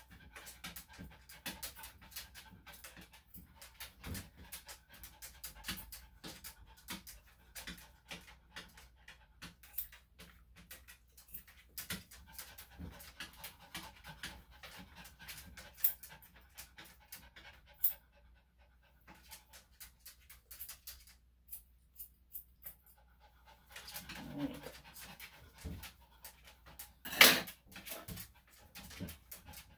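Senior Maltese–Shih Tzu panting in quick, even breaths. The panting stops for a few seconds past the middle, then resumes, with a few sharp clicks and one louder short noise near the end.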